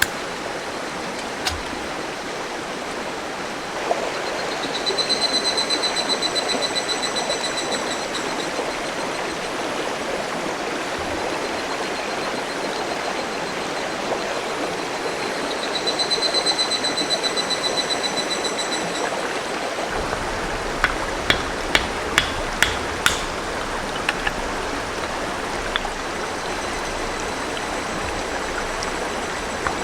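River water rushing steadily. Twice, a high, rapidly pulsed trill sounds for a few seconds, and in the last third there is a series of sharp knocks.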